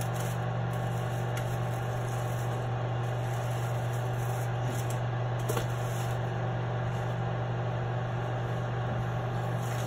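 Kitchen exhaust fan running with a steady low hum and an even rush of air.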